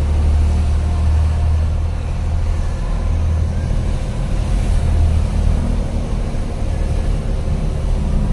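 Steady low engine drone and road noise of a vehicle driving, heard from inside its cab.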